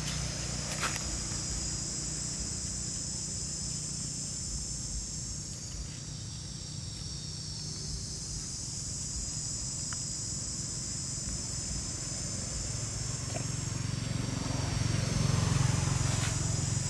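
Outdoor ambience: a steady, high-pitched insect drone that thins out for a couple of seconds midway and then returns. Under it is a low rumble that swells near the end, with a few faint rustles.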